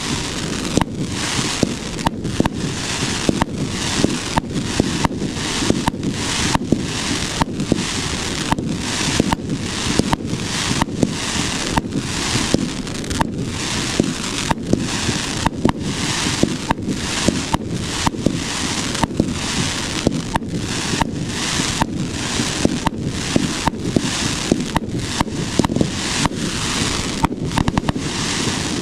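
1.4G multi-shot consumer fireworks cake (gold spider tail to gold spider with colourful dahlia) firing shot after shot in a steady barrage, about one and a half shots a second.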